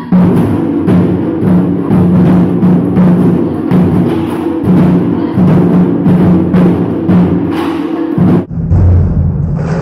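Taiko ensemble drumming: several players striking chu-daiko drums and a shoulder-slung okedo drum with bachi sticks in a fast, even rhythm. About eight and a half seconds in the playing breaks off for a moment and comes back with deeper strikes.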